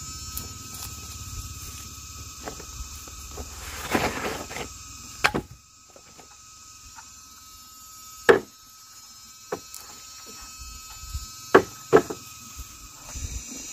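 Wooden logs and bamboo poles knocking sharply, about five times, as they are moved off a plastic tarp. The tarp rustles about four seconds in, and insects chirp steadily in the background.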